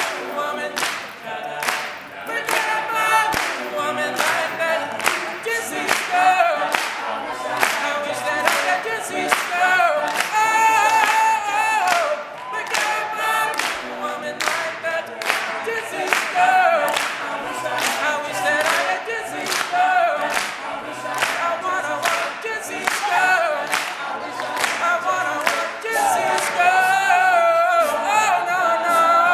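All-male a cappella group singing, a lead voice over backing voices, with a steady percussive beat running through. Near the end the lead voice holds long, high, bending notes.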